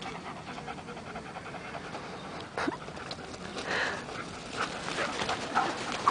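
A dog panting rapidly close to the microphone, with a few short, sharp sounds in the second half.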